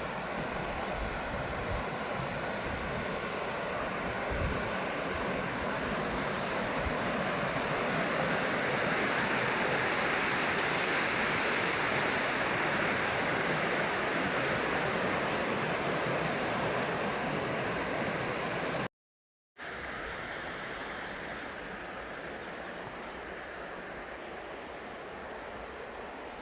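Mountain river water rushing steadily over rocks. It cuts out completely for about half a second two-thirds of the way through and comes back quieter and less bright.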